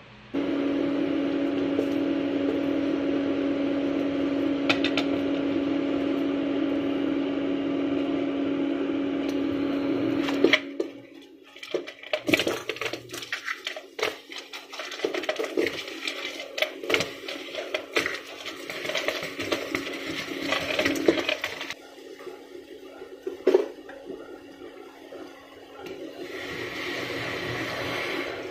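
A loud steady hum for the first ten seconds or so, which drops away sharply. Then small crabs tumbling from a bowl into a stainless steel pot, a long run of clattering knocks against the metal, and near the end soda poured over them with a light fizzing hiss.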